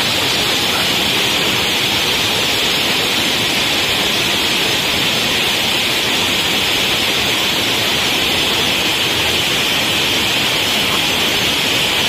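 Small waterfall pouring over rocks into a shallow pool: a steady rush of water.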